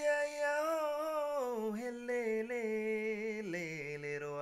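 A man singing a slow phrase unaccompanied: long held notes stepping down in pitch, with a wavering vibrato on the lower notes in the second half.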